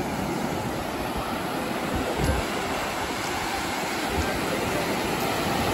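Ocean surf: waves breaking and washing in as a steady rush of water, with a low rumble underneath.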